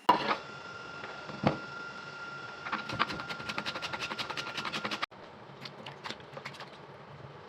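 Sharp, even clicking or tapping of kitchen utensils during food preparation, speeding to about eight strokes a second near the middle. It breaks off abruptly a little past halfway and gives way to sparser, scattered clicks.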